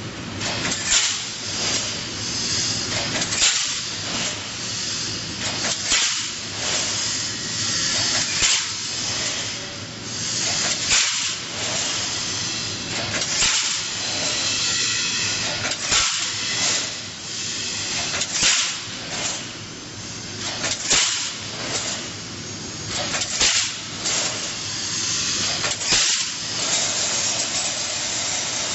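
Double-wire mesh fence welding machine running through its cycle: a short burst of hissing noise about every two and a half seconds over a steady machine background.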